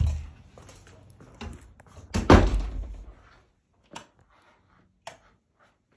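A door shutting with a heavy thud about two seconds in, after a softer knock at the start, followed by two small clicks.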